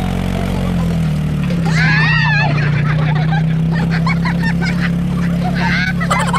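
ATV engine running steadily, its pitch dropping a little about a second in, with several people laughing and shrieking over it, loudest about two seconds in.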